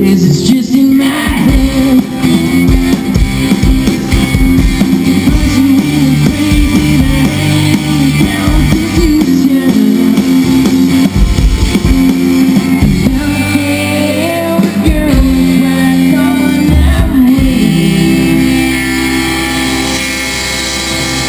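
Live band playing amplified music through a PA: guitars and a drum kit, with singing. A little softer near the end.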